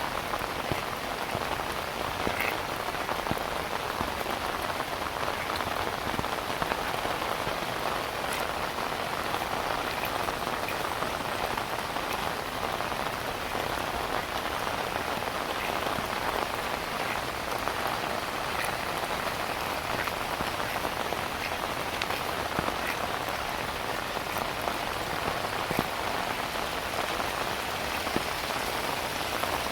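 Heavy rain falling steadily, a constant hiss with individual drops ticking sharply here and there.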